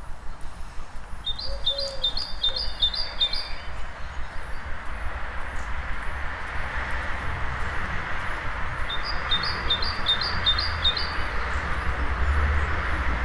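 Dawn-chorus birdsong: a bird sings two short phrases of about six quick repeated high notes, one about a second in and one near ten seconds, over a steady rumble of town traffic that grows louder toward the end.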